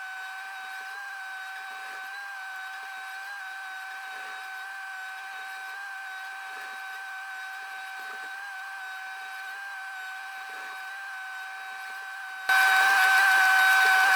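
Steady high whine from an excavator working, two held tones with no low rumble. It turns abruptly louder and fuller about twelve seconds in.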